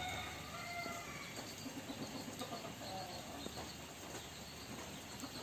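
Gamecock chickens giving a few short, soft calls, with a steady hiss of falling rain behind them.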